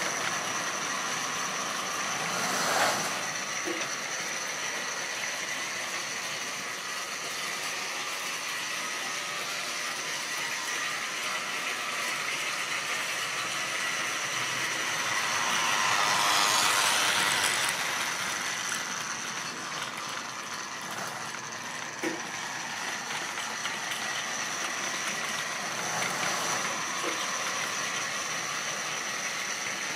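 Model railway goods train running on the layout track: a steady whirring rattle of motor and wheels on the rails, with a steady high whine underneath. It swells as the train comes nearer about halfway through, then fades again, with a few sharp clicks along the way.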